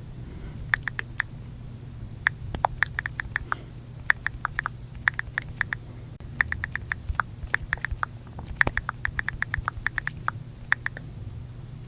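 iPhone keyboard click sounds as someone types on the touchscreen, short sharp ticks coming in quick runs of several taps with brief pauses between words.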